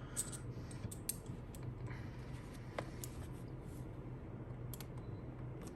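Faint scattered clicks and small scrapes of a precision screwdriver bit working a tiny pentalobe screw at the bottom of an iPhone 7 Plus, over a low steady hum.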